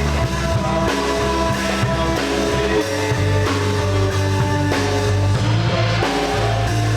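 A band playing a rock song at rehearsal: electric guitar and bass over a drum kit beat, with steady sustained chords.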